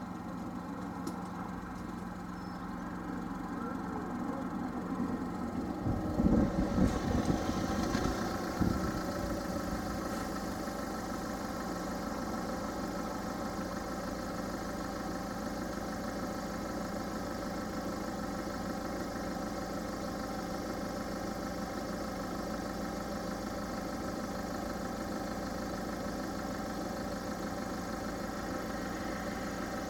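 Level crossing warning alarm sounding steadily while the barriers are down, over cars idling at the barrier. A louder burst of low rumbling comes about six to nine seconds in.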